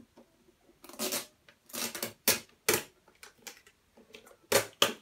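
Snap-on plastic lid being pried off a large plastic bowl: a run of sharp plastic clicks and creaks with plastic rubbing on plastic, the loudest snaps near the end.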